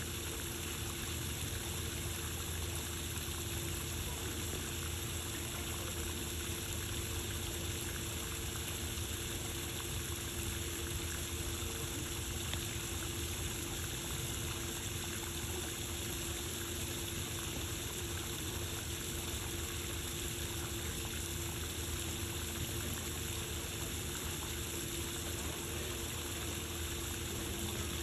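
Steady rushing of running water with a constant low hum beneath it, unchanging throughout.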